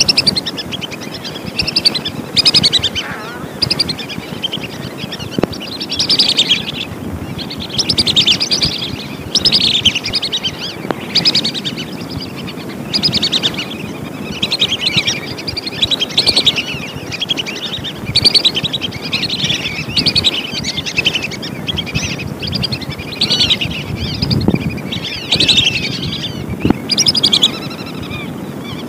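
Whistling ducks (belibis) calling: many short, shrill whistled calls overlapping one another and coming in bursts about once a second, over a steady low background hum.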